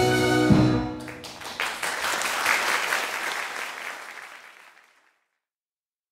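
Music ends on a held chord about a second in; audience applause breaks out, swells briefly and then fades out.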